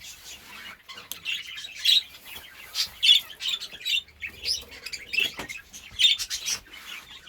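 Budgerigars chirping and chattering in quick, repeated short calls.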